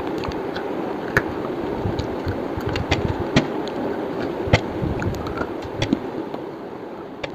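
Slate being chewed: irregular sharp crunches over a steady background rumble.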